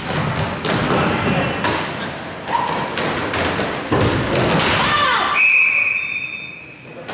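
Inline roller hockey play: a run of thuds and knocks from sticks and puck striking the boards, then a referee's whistle in one long steady blast about five seconds in, stopping play.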